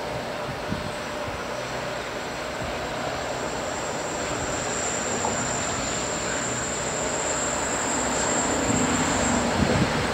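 Loaded coal train hauled by 90 class diesel-electric locomotives climbing a grade, the diesel engines working under heavy load and the sound slowly growing louder as the train approaches.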